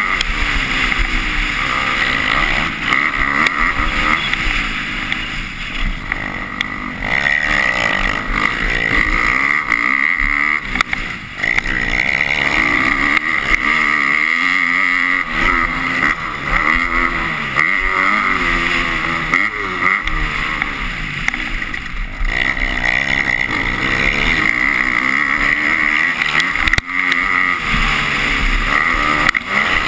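A 250-class motocross bike's engine revving up and down over and over as the rider races, working the throttle and shifting through jumps and straights, heard close up from a camera on the rider.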